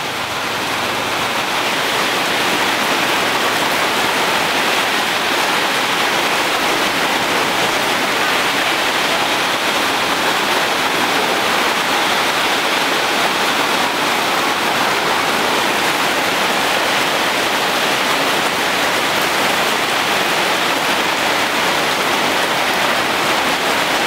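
Heavy rain pouring steadily onto trees and foliage, a dense, even hiss that does not let up.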